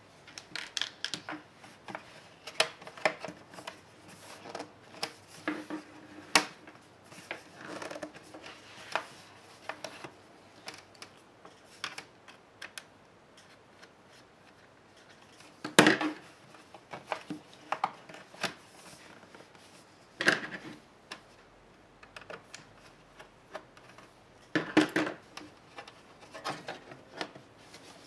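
Small screwdriver and hands working the plastic bottom case of a laptop: a steady run of light clicks and taps, with a few louder sharp plastic snaps and knocks, the loudest about sixteen seconds in.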